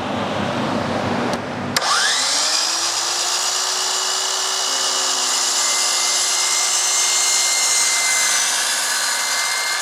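DeWalt miter saw motor starting just under two seconds in, its whine rising to speed, then running steadily with a loud high hiss as the blade cuts into a hollow PVC post sleeve.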